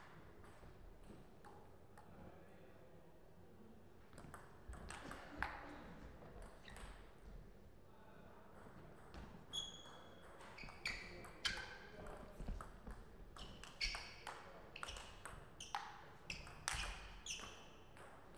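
A table tennis ball being struck by rackets and bouncing on the table in rallies: sharp, ringing pocks, a few about four seconds in, then a faster, longer run through the second half.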